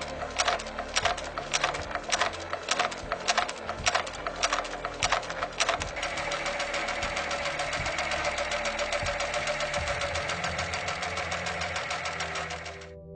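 Global PA304 P four-needle lockstitch industrial sewing machine stitching: slow, separate stitches, about three a second, for roughly the first half, then a steady high-speed run that stops shortly before the end.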